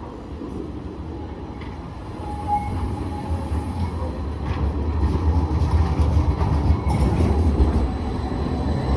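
Tram running on rails with a low rumble that grows steadily louder, and a few sharp clicks from the wheels passing over rail joints or points.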